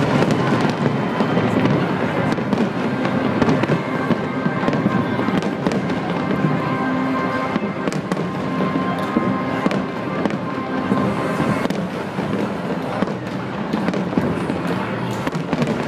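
Aerial fireworks display going off in a rapid, dense run of bangs and crackles.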